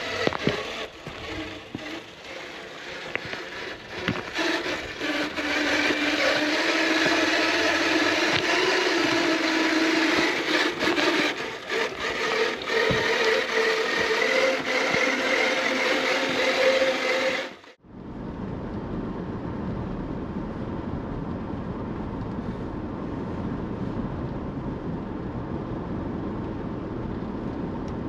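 Electric motor and gear transmission of a 1/10-scale RC rock crawler whining as it crawls, the pitch rising and falling with the throttle, with clicks and scrapes from the tyres and chassis on rock. After a sudden cut about two-thirds of the way in, a steady road rumble of a moving car.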